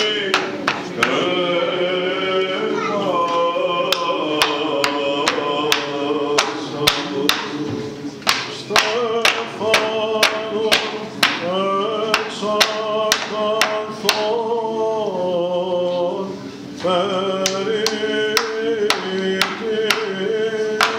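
Hammer striking the base of a wooden cross: repeated sharp knocks, unevenly spaced at roughly one or two a second with a few short pauses. Male voices chant a Byzantine Orthodox hymn throughout.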